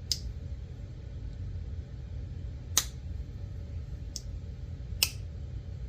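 Slip joint pocket knife's blade snapping against its back spring as it is opened and closed, testing its walk and talk: four sharp clicks, one or more seconds apart, over a low steady hum.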